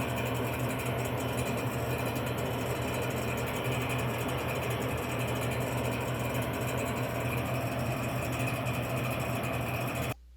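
Dixie Narco 276 soda vending machine running after being plugged in: a steady electric motor and fan hum that cuts off abruptly near the end.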